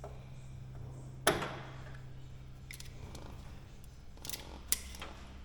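Sharp clicks and clacks of a bungee-cord hook and tools being worked off a light aircraft's landing-gear leg: one loud clack with a brief ring about a second in, then several lighter clicks.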